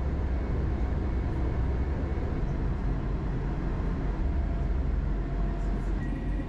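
Steady low rumble heard from inside a ZSSK Class 861 two-car diesel multiple unit, its diesel engine and running gear droning evenly. Near the end a steady high tone starts up.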